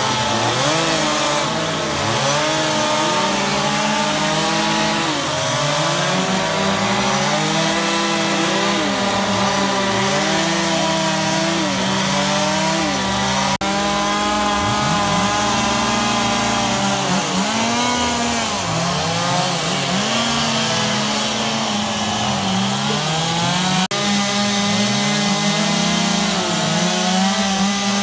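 Several chainsaws running at once while carving wood, their engine pitch rising and falling as the throttles open and close. There are brief breaks in the sound about a third of the way in and again near the end.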